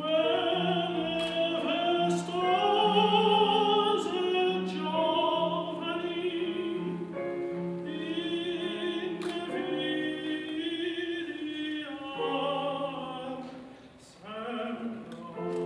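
Operatic singing with wide vibrato over sustained accompanying notes, with a short break between phrases near the end.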